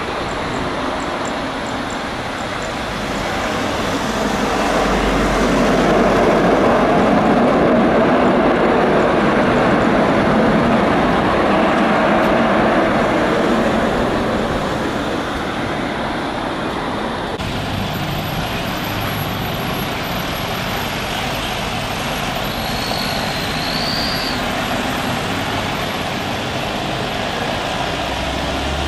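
Twin-engine business jet's rear-mounted turbofans at takeoff power during the takeoff roll: the jet noise swells to its loudest for several seconds and then slowly fades as the aircraft rolls away. About two-thirds of the way through, the sound cuts to a steadier, quieter jet noise from another business jet on approach.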